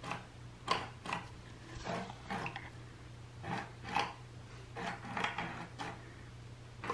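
Battery-operated cheese-shaped cat toy running, its mechanism making irregular clicks and knocks about twice a second, over a low steady hum.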